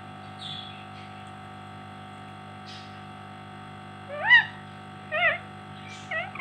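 Pet parrot giving three short whistled calls, each rising then falling in pitch, the first about four seconds in and the loudest, over a steady low hum.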